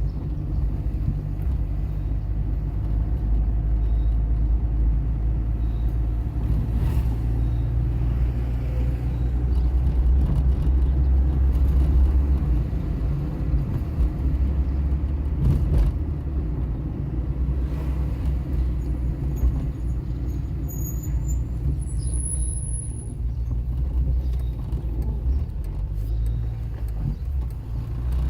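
Car engine and road noise heard from inside a moving car: a steady low rumble that eases a little about halfway through.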